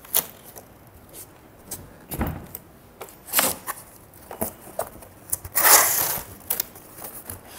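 Large cardboard box being handled and opened: scattered cardboard clicks and rubs, a dull knock about two seconds in as the box is stood on end, and a longer scraping rustle near six seconds as the top flaps are pulled open.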